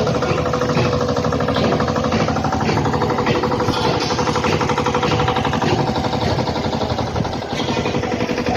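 A machine running with a rapid, steady hammering beat and a faint steady hum.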